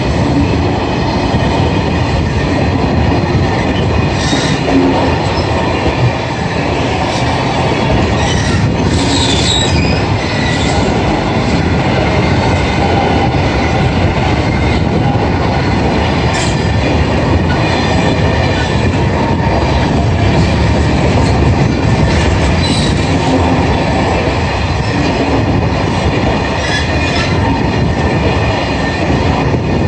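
Freight train rolling past: a loud, steady rumble of wagons on the rails, with brief high wheel squeals several times.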